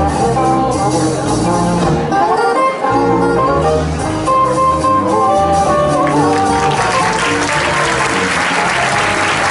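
Instrumental music playing, joined by audience applause that starts about six and a half seconds in and builds.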